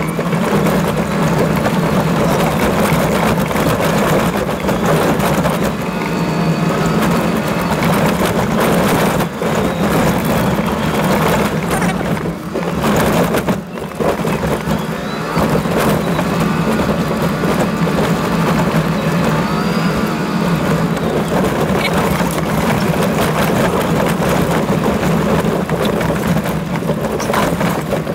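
Toyota Land Cruiser driving over a rough gravel and stone track, heard from inside the cabin: a steady engine drone with tyre noise and scattered knocks and rattles from the bumps. The level dips briefly near the middle.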